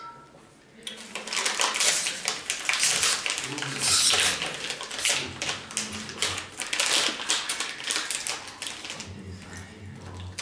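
Paper napkin crinkling and rustling in the hands, a dense run of crisp crackles that starts about a second in and thins out near the end.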